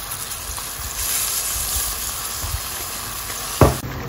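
A stainless pan of mussels, scampi and cherry tomatoes sizzling steadily in oil just after white wine was poured in. A single sharp knock near the end, a wooden spoon against the pan.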